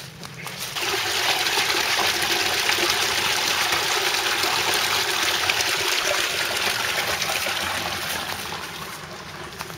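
Water gushing out of a pipe outlet and splashing into a concrete channel. The steady rush comes in about a second in and fades near the end.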